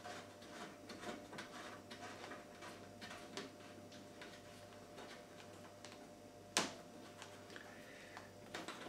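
Faint clicks and light scraping of a washing machine's plastic fill-hose connector being threaded by hand onto the inlet valve, with one sharper click about six and a half seconds in.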